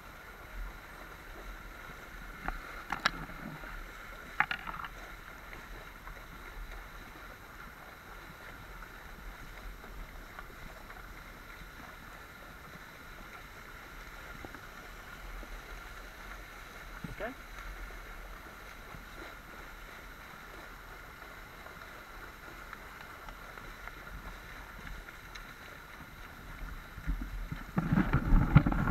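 Steady rush of river water, with a few sharp clicks along the way and a louder rumbling noise near the end.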